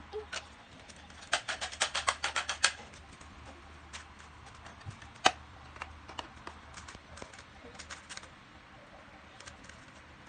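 Rubik's cube being turned fast by hand during a timed solve: sharp plastic clicks of the layers turning. About a second in comes a quick run of about a dozen clicks, then scattered single turns with one louder click.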